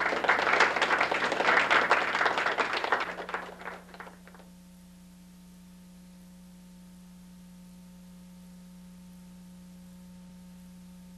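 Audience of children applauding for about four seconds, the clapping dying away, followed by a faint steady electrical hum.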